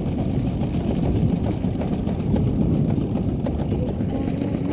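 Boat engine idling steadily, a low, even rumble, with its idle being checked.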